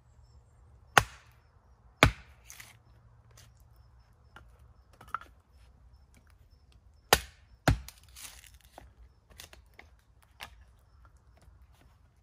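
A small camp axe, an old head on a hickory handle, chopping and splitting kindling on a wooden chopping block. There are four sharp chops, about one and two seconds in and two close together a little past seven seconds, each followed by the crackle of wood splitting, with lighter knocks in between.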